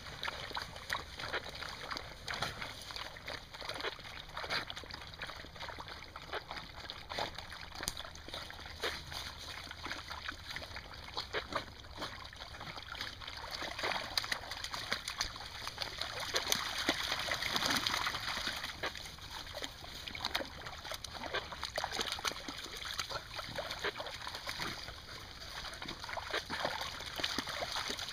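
A pack of beagles wading through shallow swamp water, splashing and sloshing irregularly, with a busier stretch past the middle.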